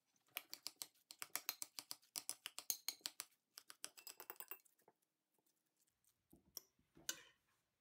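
Metal fork clicking against a glass mixing bowl while stirring mashed cauliflower: a quick run of light clicks, about six a second, for about four seconds, then two more clicks near the end.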